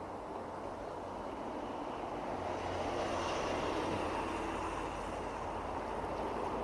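Road traffic going by, with a yellow school bus passing close about three seconds in, the loudest moment.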